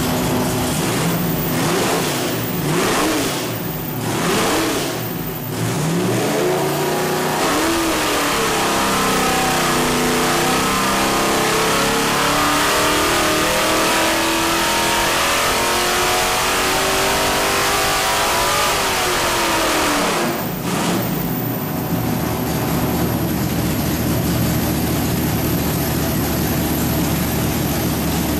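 Small-block Chevy 383 stroker V8 with a Holley carburetor running on an engine dyno. It gives several quick throttle blips, then makes a long wide-open pull with the pitch climbing steadily for about twelve seconds. The revs then drop sharply and it settles to a steady idle.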